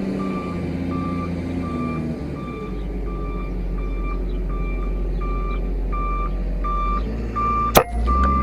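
A vehicle's reversing alarm beeping steadily about twice a second over a low engine drone. Near the end a single sharp crack: a shot from a Wildcat MK3 .30-calibre PCP air rifle.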